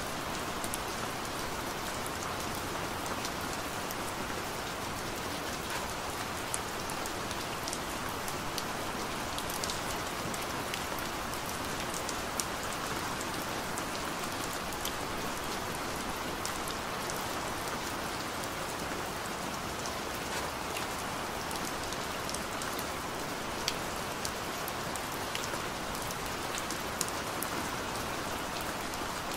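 Steady rain falling on a path and leafy branches: an even hiss with many scattered sharp ticks of individual drops.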